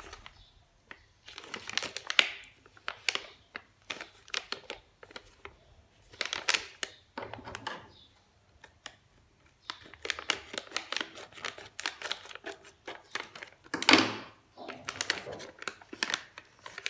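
Crinkling and crackling of a Hershey's Kisses gold foil pouch as it is handled, in irregular clusters of sharp crackles. A longer, louder crackle near the end is where the pouch is torn open.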